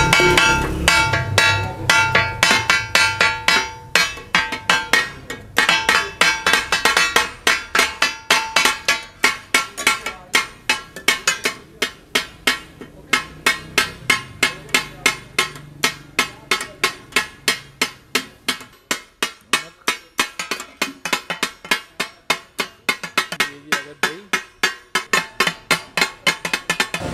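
Metal spatula blades striking a large flat metal griddle in a steady rhythm of about three strikes a second, chopping brain masala for tak-a-tak. For the first several seconds each strike rings with a metallic tone.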